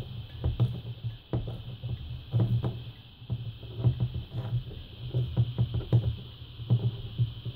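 A screwdriver with a hex bit turning out the adjustable pressure-relief valve of an electro-hydraulic power steering pump, the valve gripped in pliers: many small irregular metal clicks and knocks.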